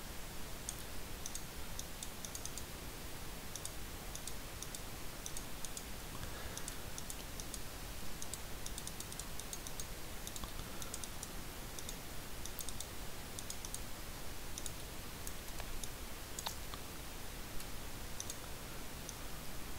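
Computer mouse clicking in irregular runs of faint, sharp clicks over a steady background hiss, as a brush tool is dabbed over an image.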